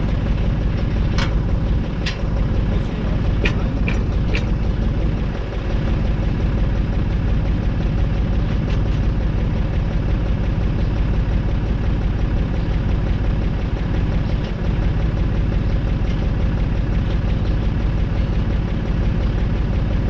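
Deutz tractor's air-cooled diesel engine idling steadily, with a few sharp metal clinks in the first few seconds as the tine harrow is hitched to the linkage.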